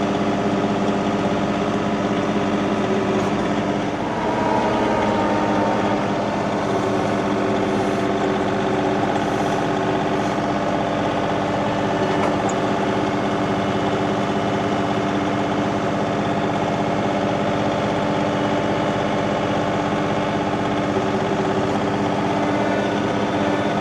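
Tractor engine running steadily, with a brief shift in pitch about four seconds in.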